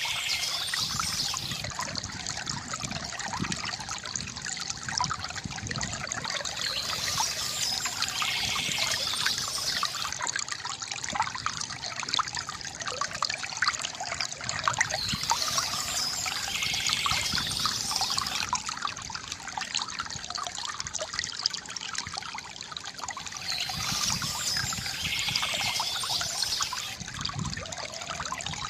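Water from a bamboo fountain trickling and splashing steadily into a basin, with a brighter, higher passage coming back about every eight seconds.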